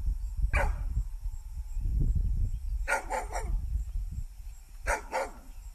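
A dog barking in short, sharp barks: one about half a second in, a quick run of three around three seconds, and two more near the end.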